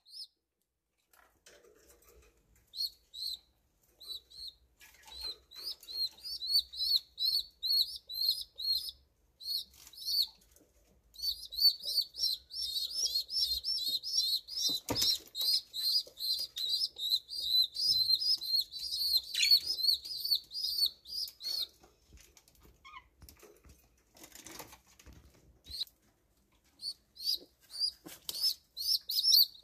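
Domestic pigeon squabs in the nest peeping: fast runs of short, high-pitched cheeps, about three or four a second, the calls of chicks waiting for their mother. The peeping breaks off for a few seconds about three-quarters of the way through and starts again near the end, with a single faint knock around the middle.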